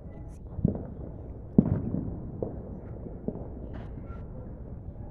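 Fireworks bursting: four sudden booms about a second apart, the second the loudest, each with a short dying tail, then faint crackling near the end.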